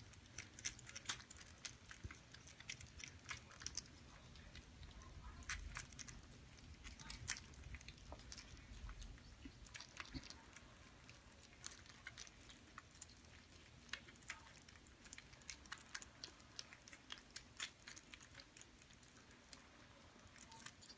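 Kittens eating dry kibble: many faint, irregular crunches and small clicks.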